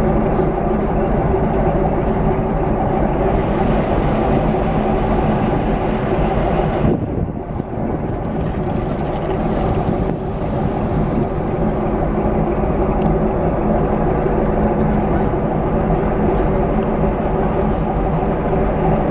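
A river passenger ship's engines droning steadily on deck while under way, a low rumble with a few steady hum tones, briefly dropping in level about seven seconds in.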